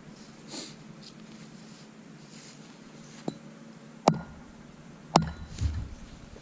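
A few sharp clicks and knocks from something being handled, the loudest two about four and five seconds in, with a low thump right after the second, over faint rustling.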